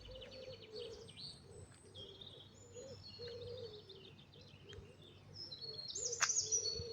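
Several wild birds calling at once: high chirps and trills over a run of lower repeated notes, loudest in a burst of sharp chirps about six seconds in.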